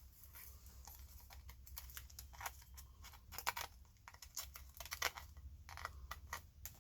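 Light, irregular clicks and taps of small plastic and metal electronic parts being handled and pried apart, with the strongest clicks about halfway through, over a faint steady low hum.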